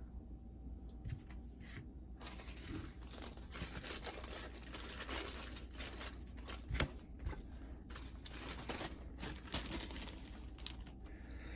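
Crinkling and rustling of packaging handled by hand, with scattered light clicks; it starts about two seconds in, after a quiet opening.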